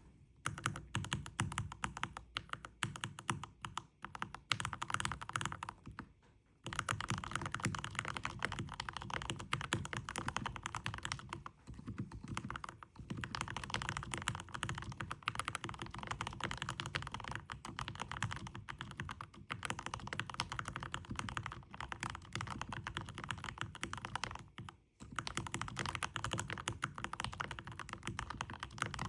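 Fast, continuous typing on a Keychron K10 MAX mechanical keyboard with lubed Gateron Milky Yellow linear switches, a dense patter of key strokes broken by a couple of short pauses.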